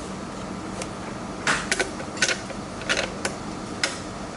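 Small sharp clicks and taps of metal screws and drone parts being handled as two screws are fitted through their holes in the landing gear mount, about six irregular clicks over a steady low hum.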